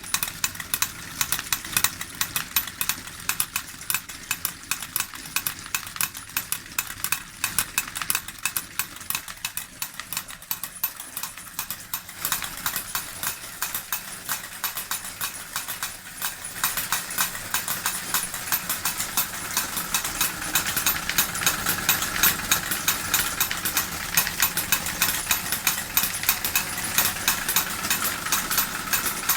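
D21 model steam engine running and driving two small model forge hammers, which clatter with a rapid, continuous train of sharp metal knocks. The knocking grows louder in the second half.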